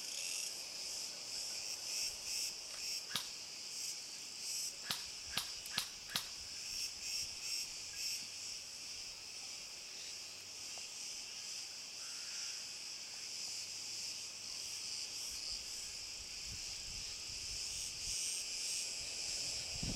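Cicadas chirring steadily in a high, continuous drone. A handful of sharp clicks come a few seconds in, five of them within about three seconds.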